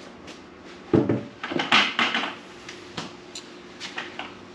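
Handling noises: a thump about a second in, a short clatter, then a few light clicks, over a faint steady hum.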